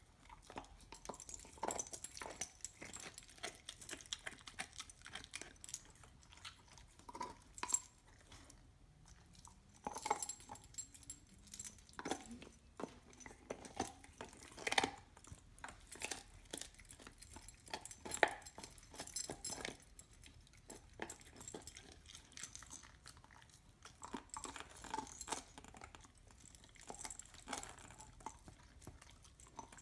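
A dog gnawing and chewing on a raw marrow bone: irregular crunches and scrapes of teeth on bone, with a lull about eight seconds in and another a little past twenty seconds.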